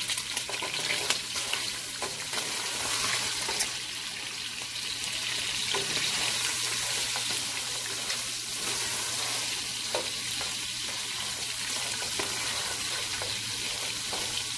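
Lamb pieces and whole garlic cloves sizzling in hot oil in a non-stick pot, stirred with a slotted spatula that scrapes and taps against the pot now and then.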